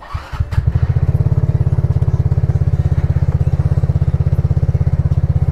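Single-cylinder scooter engine with an aftermarket exhaust and its dB killer fitted, starting from cold a fraction of a second in and settling straight into a steady, evenly pulsing idle.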